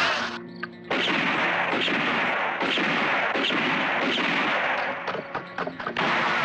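Western film soundtrack: heavy gunfire, shots running together into a continuous din with music under it. It thins out briefly about five seconds in, then comes back loud.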